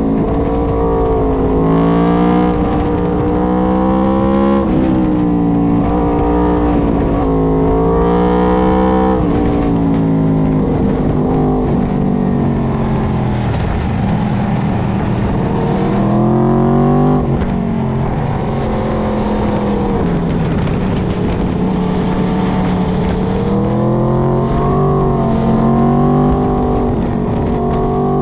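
Aprilia RSV4 RF's V4 engine pulling through the gears. Its pitch climbs, then drops sharply at upshifts about five, nine and seventeen seconds in. In between, the revs sink slowly as it slows, and they climb again near the end, over a steady low rush.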